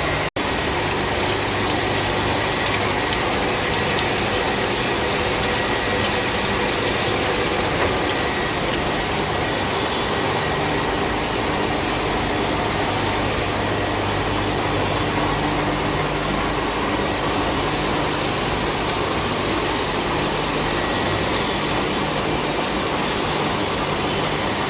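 Steady machine noise of a CNC machine cutting a gear: a continuous rushing hiss over a low hum.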